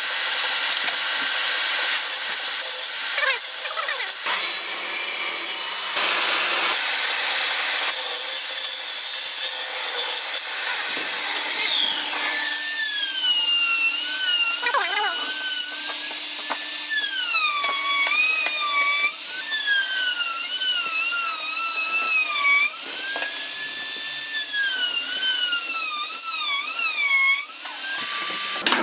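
Table saw cutting wood, then, from about the middle on, a power tool's motor whine that keeps dipping in pitch and recovering as the blade or bit bites into the wood under load.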